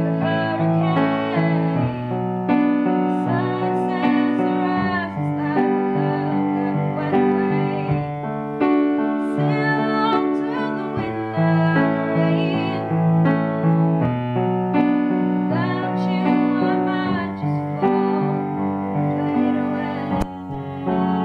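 A girl singing to her own grand piano accompaniment, the piano playing held chords that change every second or two beneath her voice.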